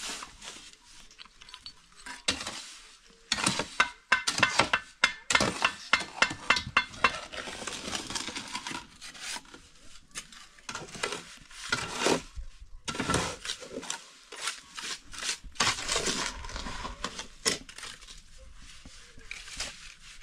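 A steel shovel scraping and clinking against the pan of a metal wheelbarrow as wet mortar is mixed and scooped, in quick irregular strokes. The strokes are busiest through the middle and thin out near the end.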